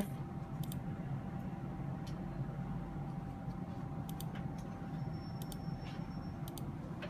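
A few faint, scattered computer mouse clicks over steady room noise with a faint steady tone.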